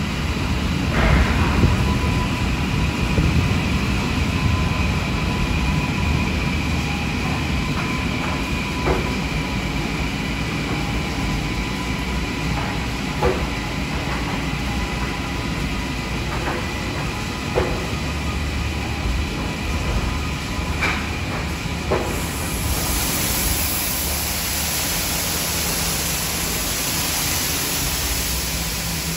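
Steady low mechanical rumble with a constant faint hum and a few light clicks, from car wash equipment and passing traffic; a hiss swells in about two-thirds of the way through and stays.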